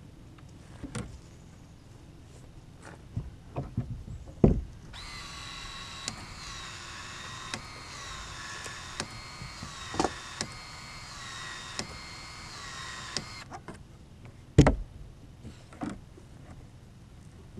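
An electric hand-held power tool's motor running for about eight seconds, its whine wavering slightly in pitch, with scattered knocks and clunks of hand work before and after and one sharp knock near the end.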